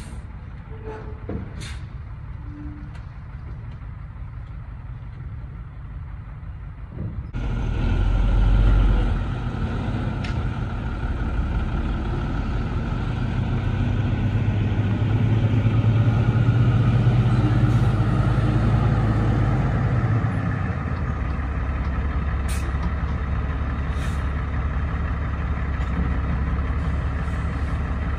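Heavy work-vehicle engine running. A low rumble with a few clicks gives way, about a third of the way in, to a sudden louder and brighter engine sound that swells briefly, runs steadily, then eases slightly near the end.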